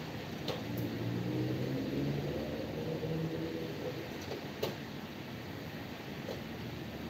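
Street traffic on wet pavement: a steady wash of tyre noise with the low hum of passing vehicle engines, and a couple of light clicks.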